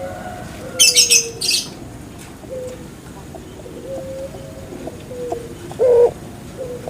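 Puter pelung (Barbary dove) cooing: a string of short, low coos, some sliding slightly down in pitch, with a louder coo near the end. A few sharp, high chirps sound about a second in.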